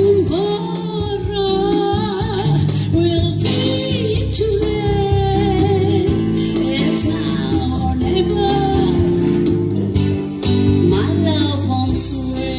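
A woman singing a melody with long held notes and gliding pitch over instrumental backing music.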